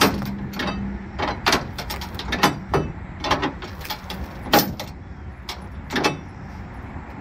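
Flatbed trailer strap winch being ratcheted tight with a winch bar: a series of sharp metallic clicks and clanks at an uneven pace, thinning out after about four seconds.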